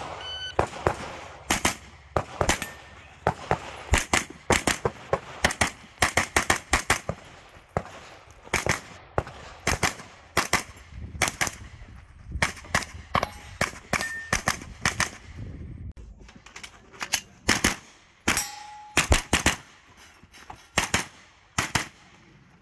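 Pistol-caliber carbine shots fired in rapid pairs and short strings during a USPSA stage, with short pauses between strings. A short metallic ring follows a shot a couple of times, as from a steel target being hit.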